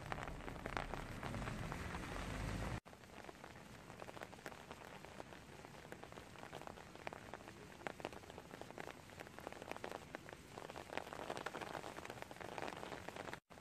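Steady rain with the patter of many separate drops. A low rumble sits under the rain for the first three seconds or so, and the sound breaks off for an instant there. After that the rain goes on with sharper, distinct drop taps.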